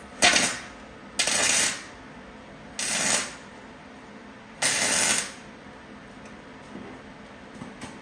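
Gasless flux-core wire welder laying short tacks on thin car sheet metal: four crackling bursts of about half a second each, a second or so apart.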